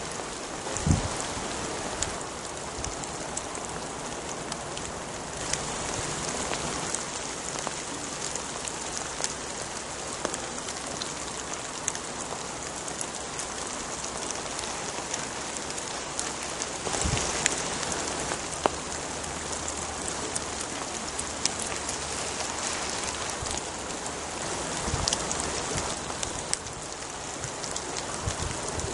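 Steady rain falling on woodland, with many scattered drop ticks close by and one louder knock about a second in.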